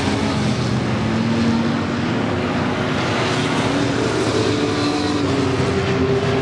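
Engines of several compact pickup trucks racing together on a short oval track, a steady mix of engine notes rising and falling as the trucks pass.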